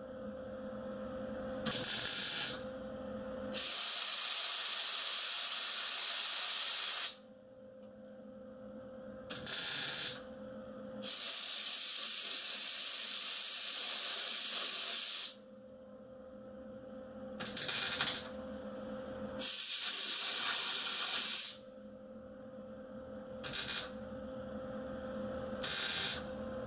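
MIG welder laying short spot welds on a thin sheet-metal patch panel, each tack a brief burst of about half a second to a second, alternated with three longer hissing blasts of compressed air, two to four seconds each, that cool each weld to keep heat out of the panel so it doesn't warp. A faint steady hum runs underneath.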